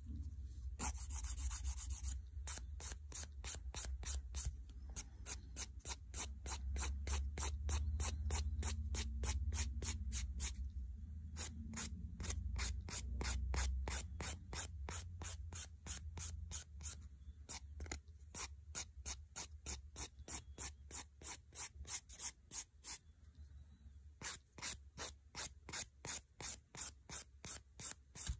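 180-grit hand nail file rasping back and forth over a fingernail in quick, even strokes, about three a second, with a couple of brief pauses: hard building gel being filed off the nail.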